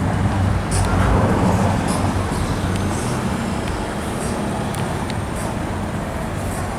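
Road traffic noise from slow, jammed cars: a steady engine and tyre hum, swelling as a vehicle goes by about a second in, then easing.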